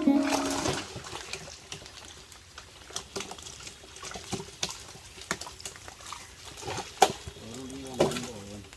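Plucked-string background music fades out about a second in. It gives way to pond water splashing and trickling in short, irregular splashes.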